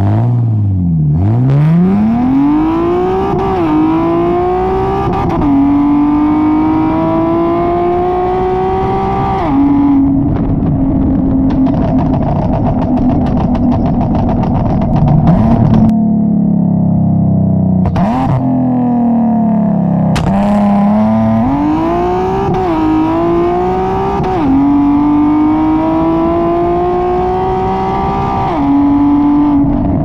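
Nissan 370Z's 3.7-litre V6 heard at the tailpipe through an ISR exhaust with resonated test pipes, Y-pipe and single exit, while driving. It pulls up through the gears with three upshifts, each dropping the pitch, then holds a steadier lower note and slows, and about two-thirds of the way in pulls through three more upshifts.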